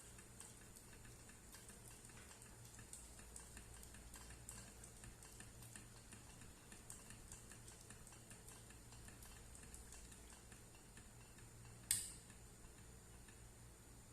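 Faint, light clicking and tapping of kitchen utensils, a few clicks a second at an uneven pace, with one sharper click near the end.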